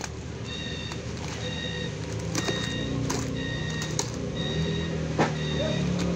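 Box cutter blade slicing and scraping through packing tape and cardboard on a carton, with a few sharp clicks. Under it, short high-pitched tones repeat every second or so, and a low steady hum grows stronger in the second half.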